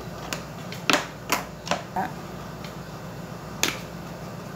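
Kitchen containers handled on a counter: a quick run of sharp clicks and knocks over the first two seconds, then one more click about three and a half seconds in.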